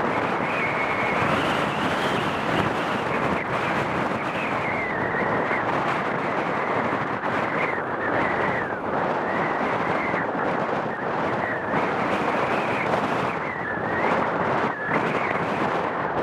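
Boeing 757's twin jet engines at takeoff power as it accelerates down the runway: a steady heavy roar with a high whine that wavers in pitch, mixed with strong wind buffeting the microphone.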